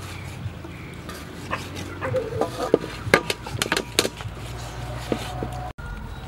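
Stainless steel colander knocking and clinking against an aluminium bowl while sliced raw beef heart is tipped and pushed around in it, a handful of sharp clacks about three to four seconds in.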